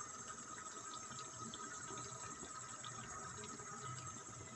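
Mutton karahi cooking in oil in the pot: faint, steady bubbling and sizzling with small scattered pops.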